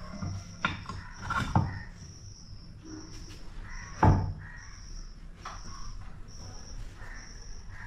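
Several wooden knocks as the carved wooden bull heads and their wooden rail are pushed and set against the wall, the loudest about four seconds in. Under them a high, even chirp repeats about once a second, over a steady low hum.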